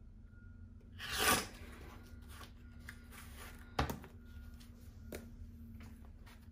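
Cotton quilting fabric rustling as it is handled and lifted off a cutting mat, with a short swish about a second in, one sharp knock a little before four seconds, and a few faint taps.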